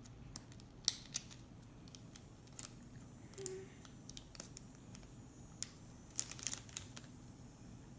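Scissors snipping and small sharp clicks from handling plastic toy packaging, a few scattered snips with a quick cluster about six seconds in.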